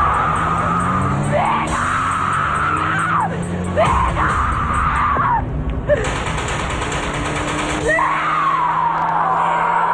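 A woman screaming in anguish, several long drawn-out cries of "¡Mi hijo!" and "¡No!", over dramatic background music.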